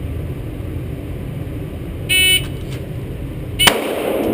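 A shot timer's start beep sounds once, about two seconds in. About a second and a half later a single 9 mm shot from a Glock 17C pistol, the loudest sound, with a short ringing tail.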